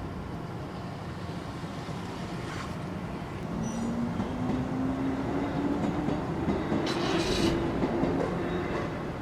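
JR 103 series electric train passing, its wheels rumbling and clacking on the rails, with a whine rising steadily in pitch as it comes by. It grows louder about three seconds in and fades near the end.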